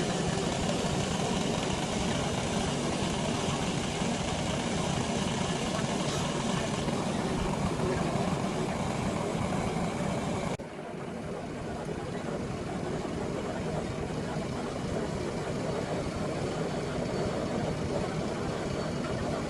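Steady mechanical running noise, like a machine or engine. About ten and a half seconds in it changes abruptly, dropping in level and losing much of its high hiss.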